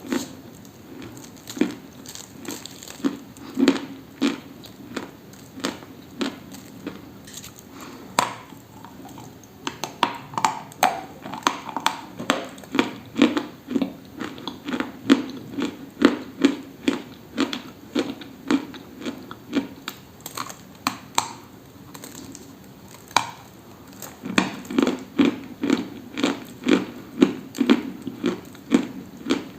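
Someone chewing something dry and crunchy up close, in runs of sharp crunches about two or three a second. There are short quieter pauses between the runs.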